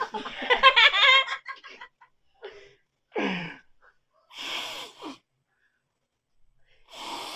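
A shrill, wavering burst of cackling laughter in the first second, then several short breathy puffs and gasps, one ending in a falling groan, with silences between them.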